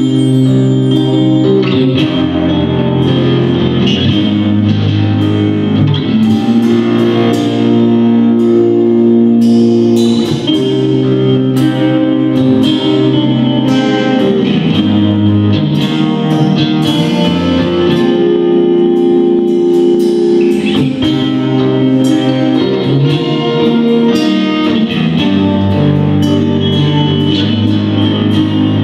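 Live rock band playing a progressive metal arrangement: sustained electric guitar chords over drum kit hits.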